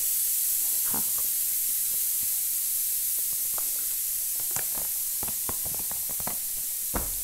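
A steady high hiss, with scattered light clicks and rustles as a paper certificate is handled close to the microphone. The sharpest click comes near the end.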